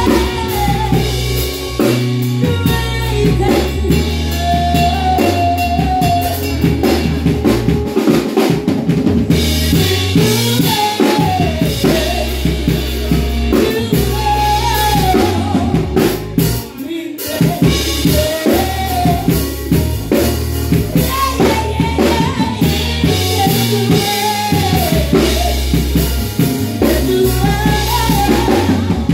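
Band music driven by a drum kit, with kick drum and snare, under a woman singing a wavering melody into a microphone. The music briefly thins out about two-thirds of the way in.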